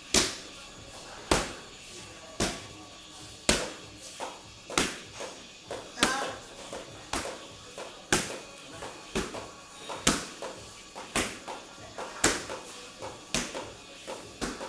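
Punches and kicks landing on a coach's kickboxing striking pads: sharp slaps about once a second, with lighter hits in between.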